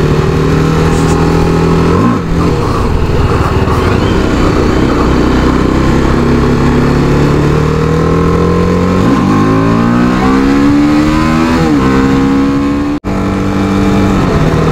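Motorcycle engine running at a steady cruise, then revving up under acceleration about nine seconds in, with a gear change near twelve seconds, over steady road and wind noise. The sound cuts out for a split second near the end.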